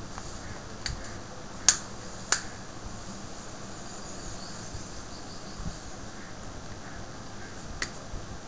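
A few short, sharp plastic clicks, four in all: three in the first two and a half seconds, the middle one loudest, and one near the end. They come from a plastic pry pick working around the Q Mobile E950 phone's housing as its snap clips pop loose. Steady hiss runs underneath.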